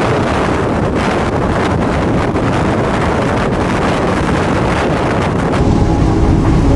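Strong wind buffeting the microphone in a loud, steady rush. A steady hum joins near the end.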